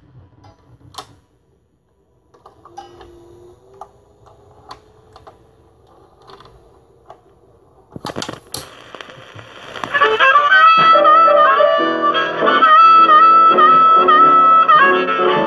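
Faint mechanical clicks from a Dual 1019 record changer as its tonearm moves across, then the stylus drops onto a spinning 78 rpm shellac record about eight seconds in with a thump, followed by crackle and hiss. About two seconds later the record's 1951 blues recording begins loudly, led by harmonica.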